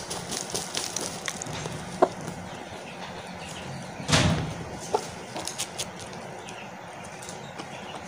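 Aseel chickens dust-bathing in dry soil: scratchy rustling of feathers and dirt, with one loud flurry of wing-shaking about four seconds in and a few short clucks.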